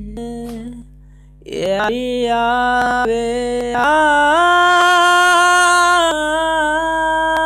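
Intro of a Hindi song: a melody of long held notes that steps up and down in pitch, coming in strongly about a second and a half in after a brief dip.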